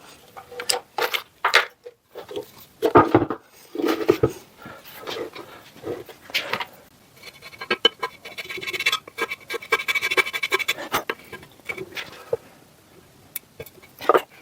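Hand tools scraping, rubbing and clicking against a metal drill press head casting as its raised lettering is worked by hand. There is a denser, steadier stretch of scraping from about seven to eleven seconds in.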